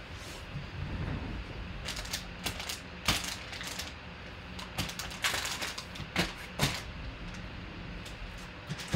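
Foil wrappers of Gold Rush basketball card packs crinkling and rustling as a stack of packs is handled and sorted by hand, in a string of short bursts.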